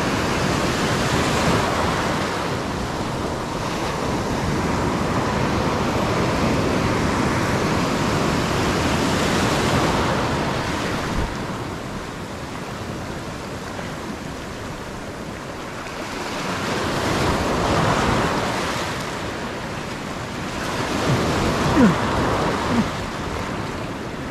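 Ocean surf breaking and washing over a rocky shoreline, the rush of water swelling and easing as waves come in and drain back. Two brief sharp sounds stand out near the end.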